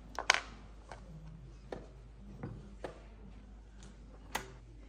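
Wooden chess pieces being set down on the board and the chess clock being pressed in quick blitz play: a series of sharp clicks and knocks, the loudest a double click just after the start and another near the end.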